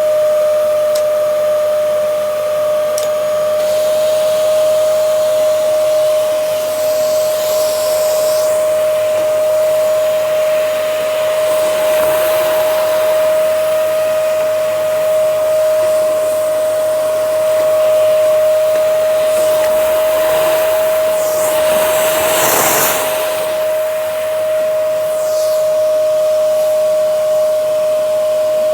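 Dyson DC07 upright vacuum cleaner running steadily with a constant high motor whine over a rush of air. The rushing airflow swells briefly twice, about twelve seconds in and again a little past twenty seconds.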